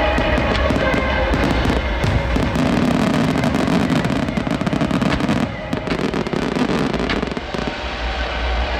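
Aerial fireworks bursting and crackling, many sharp reports in quick succession over a steady low rumble.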